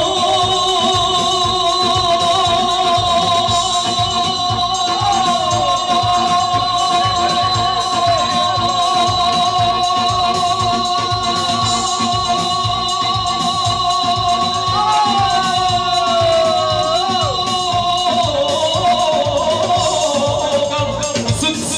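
Live Balkan folk music: a male singer holds one long note with vibrato over a keyboard backing with a steady beat. He adds a few ornamental turns and drops to a lower pitch near the end.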